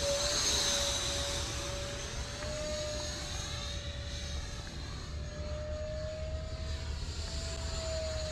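Electric motor of a 3D-printed Mirage 2000 RC model jet in flight overhead: a steady whine with a fainter high tone above it, its pitch drifting slightly up and down as it flies.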